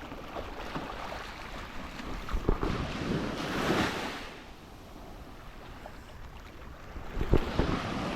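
Surf washing up on a sandy beach, one wave swelling to its loudest about three to four seconds in and then drawing back, with wind buffeting the microphone.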